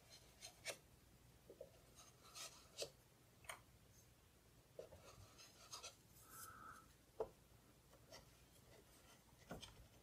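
Faint, irregular clicks of the Canon Typestar 10-II typewriter's plastic keys being pressed one at a time, a test of whether the cleaned and sanded keys now move freely instead of sticking.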